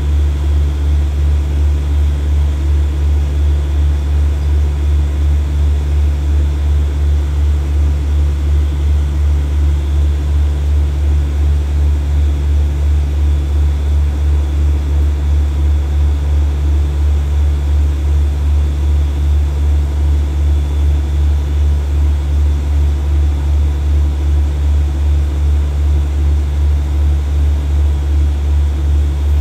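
Diesel locomotive engine idling with the train at a standstill: a steady low rumble with an even throb about twice a second.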